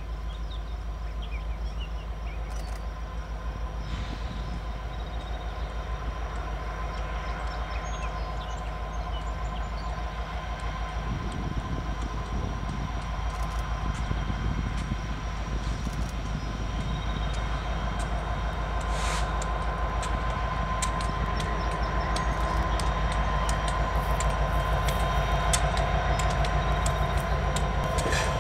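A freight train led by several diesel locomotives approaching and drawing near. The engines run with a steady rumble and whine that grow louder, and sharp clicks of the wheels over the rails come in about halfway through.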